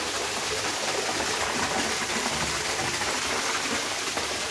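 Water pouring from a pipe into a concrete tank, a steady splashing rush.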